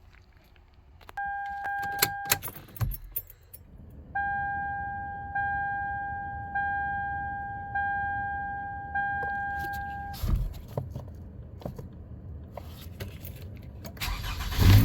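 A 2011 Toyota Camry's warning chime: one steady beep about a second long, then five chimes repeating about every 1.2 seconds, with clicks and knocks in between. Near the end the engine cranks and starts.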